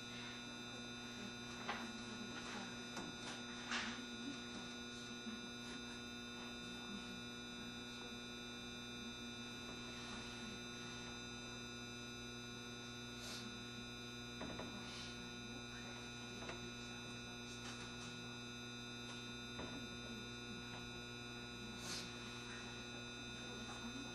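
Inside a JR Shikoku 7200 series electric train, a steady electrical hum of several unchanging tones, with a few faint clicks and no rise or fall in pitch.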